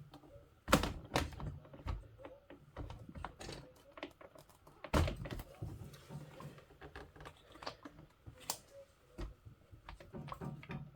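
Hard plastic RC car body being handled and fitted onto its chassis: irregular clicks and knocks, with two louder thunks, one about a second in and one near the middle.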